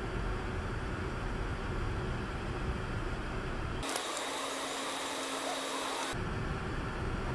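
Low road and engine rumble of a car heard inside its cabin. From about four to six seconds in, it gives way to a steady thin hiss with no low rumble, then the rumble returns.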